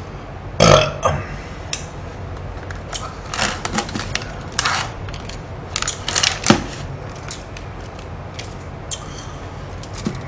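A loud burp about a second in, then crackling and rustling as the plastic film and lid of a takeaway pickled-radish tub are peeled open and the foil lining of a chicken box is handled.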